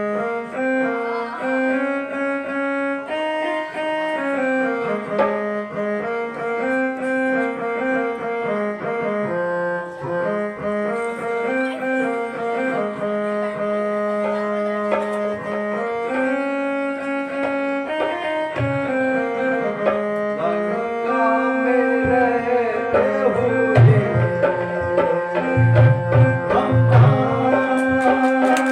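Indian instrumental music: a melody of long held notes stepping up and down over percussion. Deep, rhythmic drum strokes come in strongly about 22 seconds in, and the music grows louder.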